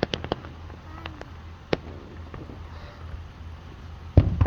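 Fireworks going off: a quick run of sharp pops in the first half second and a few single cracks after it, then one loud, deep boom near the end.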